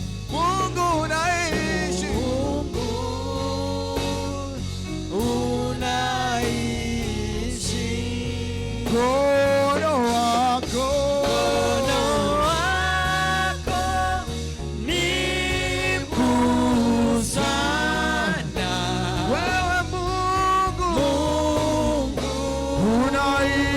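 Gospel praise music: voices singing a worship song over a steady band accompaniment with bass and drums.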